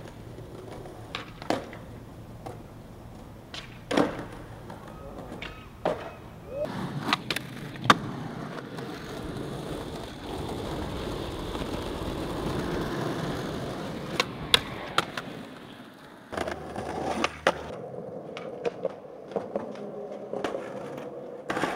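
Skateboards rolling on rough pavement, with sharp pops and the clack of wheels and trucks landing as tricks are done, several times over. Near the end a board slides along a thin metal rail.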